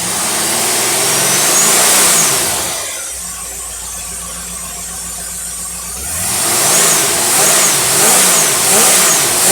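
Engine with a Holley marine four-barrel carburetor being revved: one long rev up and back down, a few seconds of steady idle, then a quick series of about five throttle blips. It picks up cleanly, the carburetor now running well instead of stumbling.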